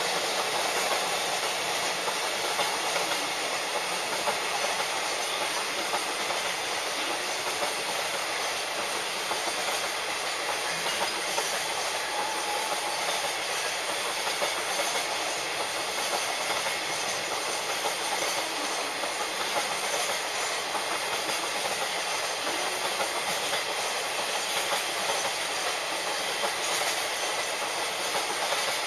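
Freight train hauled by an EF64 electric locomotive passing, a long string of container wagons rolling by with a steady noise of steel wheels running over the rails.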